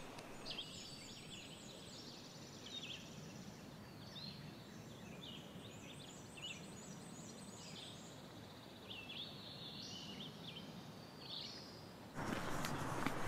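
Several songbirds singing in woodland: repeated high chirps, trills and buzzy phrases over a faint background hiss. About a second before the end, a louder rushing hiss starts abruptly.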